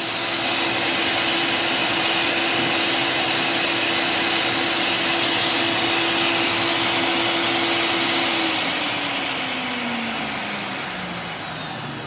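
Motor of a Wolf Gourmet blender, out of its housing on the bench, running at a steady high speed under its automatic Smoothie program. From about eight seconds in it slows, its whine falling in pitch and getting quieter.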